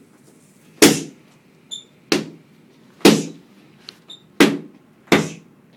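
Punches landing on boxing focus mitts during padwork: five sharp smacks, roughly one a second, each with a short room echo. Two brief high squeaks fall between the smacks.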